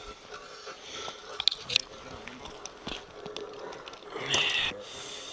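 Crunching and scraping on snow-covered lake ice from someone moving and handling gear, with a couple of sharp clicks about a second and a half in and a louder rasping scuff about four seconds in.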